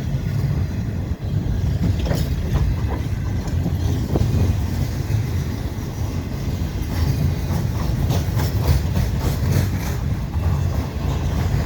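Empty flat cars of a Canadian National freight train rolling past: a steady low rumble with the wheels clacking over the rail joints, the clacks coming thickest in the second half.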